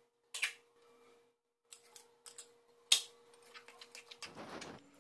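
Spoon clicking and tapping against bowls as soaked chana dal and green chillies are scraped into a bowl of curd, with the sharpest tap about three seconds in. Near the end comes a short wet scraping as the mixture is stirred.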